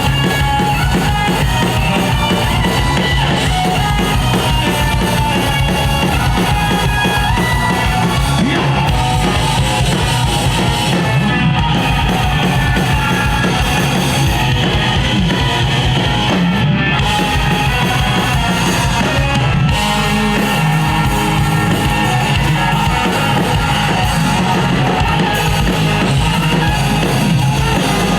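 Live rock band playing an instrumental passage with drum kit and guitars, loud and continuous, the low end shifting about two-thirds of the way through.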